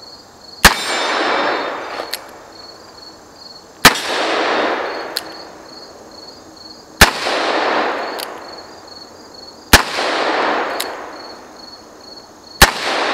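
Five revolver shots at a steady pace about three seconds apart, each a sharp crack followed by a long fading echo. A fainter click comes about a second after each of the first four shots.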